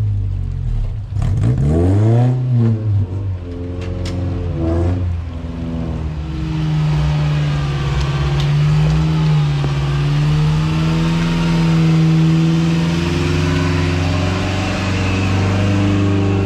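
Off-road vehicle engines revving and crawling over logs and rocks, the pitch rising and falling sharply in the first few seconds. About midway a vehicle comes close and its engine runs at a steadier, louder pitch.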